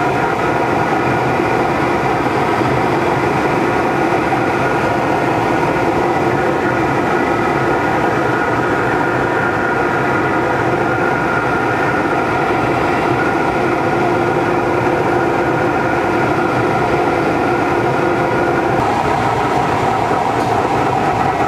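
Steady drone of a tow plane's engine and propeller over rushing airflow, heard from inside a glider's cockpit on aerotow. The engine's steady tones fade out near the end while the air noise goes on.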